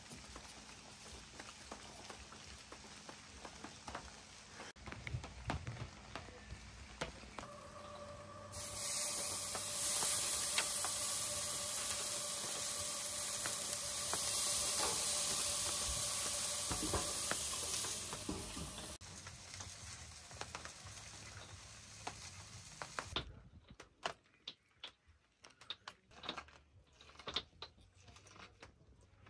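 Ribeye steak sizzling on a hot barbecue grill: a loud, steady hiss starts about eight seconds in and fades out a little before twenty seconds. Near the end, scattered light clicks.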